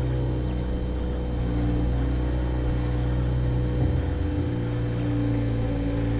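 Bobcat 642 skid-steer loader's engine running steadily, its note changing about four seconds in.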